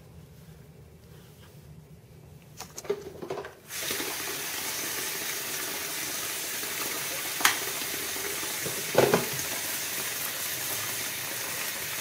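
Bathroom tap running into the sink as a steady rush that starts about four seconds in, after a few light clicks. Two sharp knocks stand out over it partway through.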